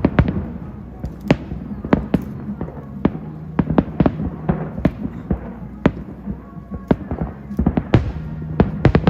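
New Year's fireworks bursting overhead: a rapid, irregular run of sharp bangs, several a second, some louder than others, over a steady low hum.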